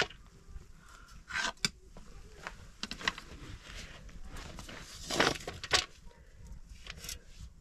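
Scattered clinks and knocks of metal cooking pots being handled and set down on the ground, with plant stalks being broken and dropped into a pot; the loudest knocks come about five and six seconds in.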